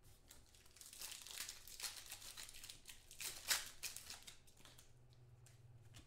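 Foil trading-card pack being torn open and crinkled by hand: a few seconds of crackling, loudest about three and a half seconds in, then quieter handling of the cards.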